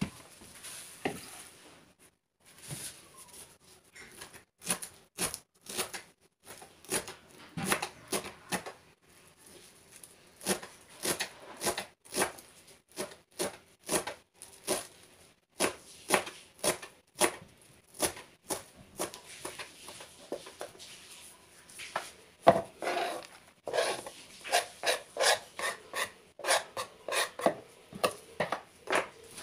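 Knife chopping fresh coriander on a cutting board: sharp knocks in quick runs of several strokes a second, with short pauses between runs.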